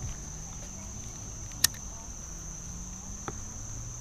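Insects trilling in one steady, high, even tone, with a single sharp click about one and a half seconds in and a fainter click near the end.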